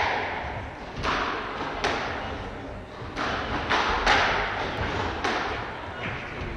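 Squash rally: the ball being struck by rackets and slapping off the court walls, about seven sharp cracks spaced half a second to a second apart, each ringing on briefly in the hall.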